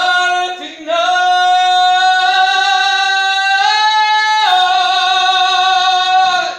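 A singer holding one long, loud note without accompaniment, stepping slightly up in pitch around the middle and back down. A short sung note comes just before it.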